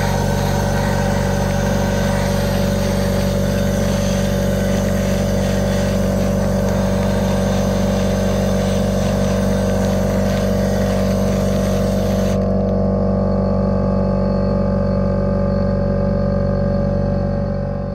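Neiko gravity-feed sandblaster gun blasting abrasive with a loud, steady hiss over the steady running of an electric air compressor. The blasting stops suddenly about twelve seconds in, and the compressor keeps running.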